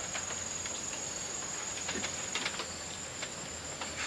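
Insects calling steadily, a continuous high-pitched shrill, with a few faint clicks.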